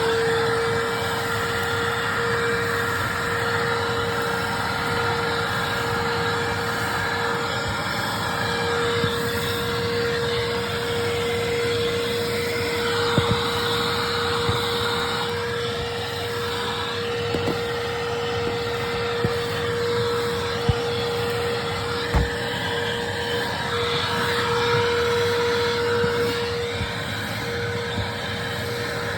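2002 Hoover Ultra Self-Propelled WindTunnel upright vacuum, with its 12-amp motor, running steadily with a constant high hum over a rush of air while cleaning through the hose and upholstery tool. The airflow rises and falls as the tool works, with a few small clicks and knocks.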